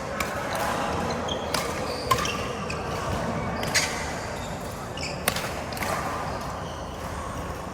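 Badminton rackets striking a shuttlecock in a doubles rally: several sharp clicks at uneven intervals, a second or so apart.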